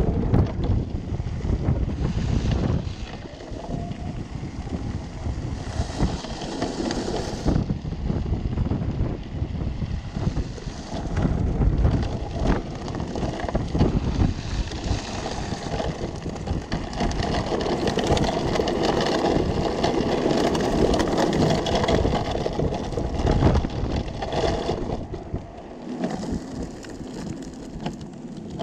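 A homemade electric go-kart driven by 36 V hoverboard hub motors rolling along: wind buffeting the microphone and the small tyres rumbling and rattling over rough paths, the noise rising and falling with the surface.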